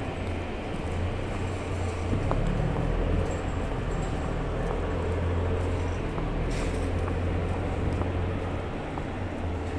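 A boat's engine running at the pier with a steady low rumble.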